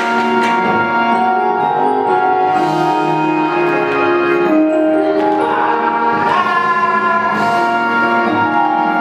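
Music from a large wind band: held chords of sustained notes, shifting to new chords every second or two.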